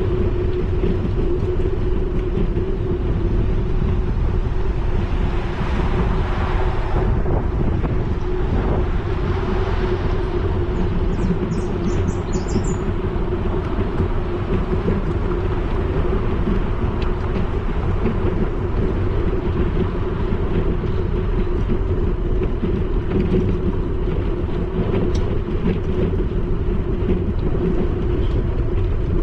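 Riding noise of a bicycle picked up by a GoPro: a steady low rumble of tyres on pavement and wind on the microphone, with a constant low hum. A louder rush swells about six seconds in, and a few short high chirps come around eleven to twelve seconds in.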